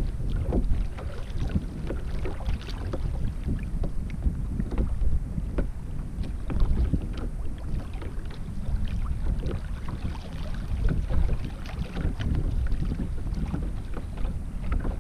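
Wind noise on the microphone with small waves lapping and splashing against a kayak hull, a steady low rumble broken by many small irregular splashes.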